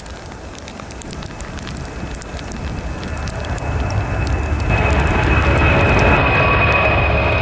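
CC-177 Globemaster III's four turbofan engines at climb power just after takeoff: a deep rumble with sharp crackles that grows steadily louder as the jet comes closer. About two-thirds of the way in, a steady high whine joins it.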